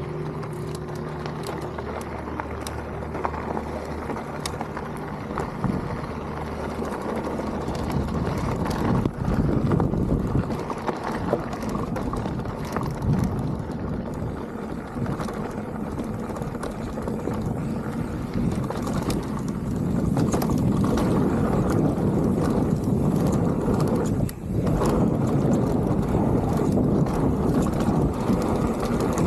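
Mountain bike riding down a dirt trail: wind rushing over the helmet-camera microphone, with tyre noise and short rattling clicks from the bike over rough ground. A faint steady hum in the first several seconds. The rushing gets louder about a third of the way in and again past two-thirds, with a short dip near the end.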